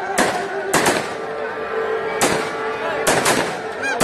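Fireworks display going off: loud sharp bangs of firecrackers at irregular intervals, several in quick pairs, over a steady crackle.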